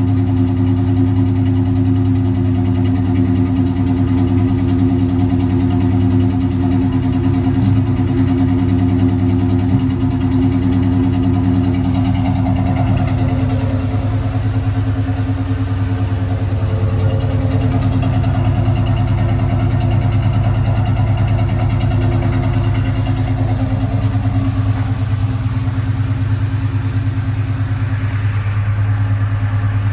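A Cobra's engine idling roughly, a steady running sound with a slight shift in its tone partway through.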